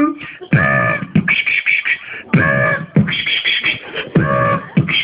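Robot sound effects made with the mouth, beatbox-style: three short pitched vocal buzzes, each about half a second, alternating with hissing.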